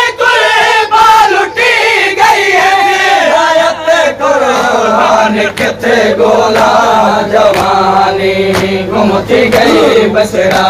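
Large crowd of men chanting a Siraiki noha (mourning lament) together, with repeated sharp hand slaps cutting through the voices.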